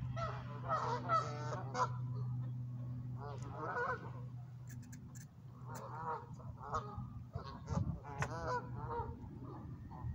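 Geese honking, many calls in clusters throughout, over a steady low hum that fades out about halfway through.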